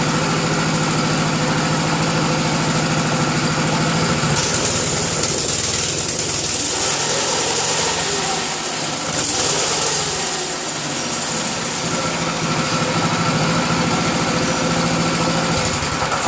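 Small single-cylinder gas engine, an old farm pump motor driving a motorized chopper bicycle through a chain and jack shaft, running steadily at first. About four seconds in it is given throttle and runs faster and noisier for several seconds, testing the new chain drive, then eases back toward a steadier idle near the end.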